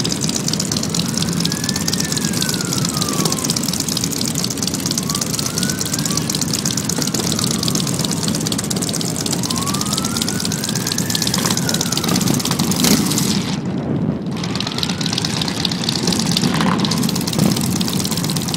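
Many motorcycle engines running together as a group ride pulls off. Over them, a siren wails slowly up and down, about one rise and fall every four seconds.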